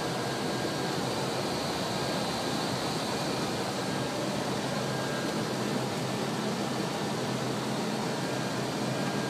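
Steady rushing noise inside an Airbus A320 cockpit on final approach: air streaming around the nose and the cockpit air conditioning, an even hiss with a faint high whine, unbroken by callouts.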